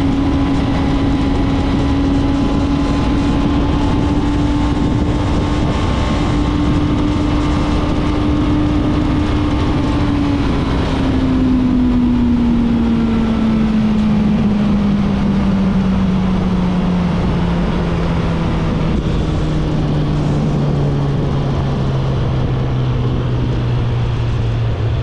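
Suzuki GSX-S1000's inline-four engine running at a steady cruise over a constant rush of wind and road noise. From about halfway through, its note falls steadily and smoothly as the bike slows.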